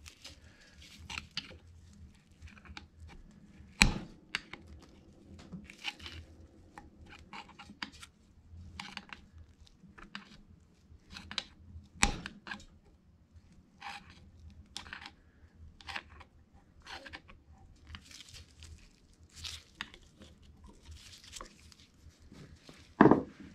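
Flat-blade screwdriver prying and scraping at the brass valve caps in an FMC John Bean R10 pump head, working them back and forth out of their O-ring seats. It makes a run of short metal scrapes and clicks, with two sharper clicks about 4 and 12 seconds in.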